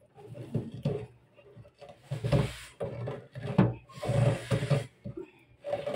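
Clear plastic water-filter housing being twisted by hand on its threaded fitting, the plastic rubbing and creaking in several uneven bursts.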